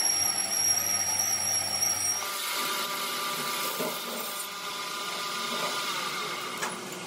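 Machine-shop machinery running with a steady high whine; about two seconds in the sound switches abruptly to a different, lower steady machine hum.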